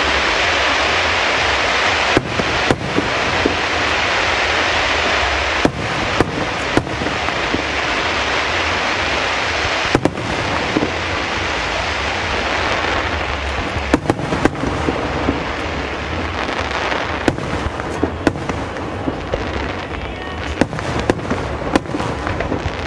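Fireworks display: a continuous dense crackle and hiss from a rapid barrage, with sharp bangs from bursting shells scattered through it. The crackle thins out about halfway through while the bangs keep coming.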